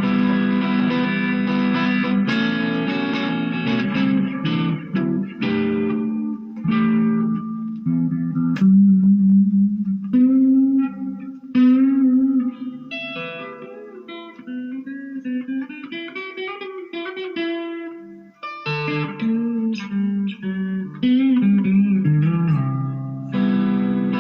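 Electric guitar played through a Marshall MG15GFX 15-watt combo amp with its reverb set to studio mode: strummed chords, then a quieter passage of single notes in the middle, then chords again near the end.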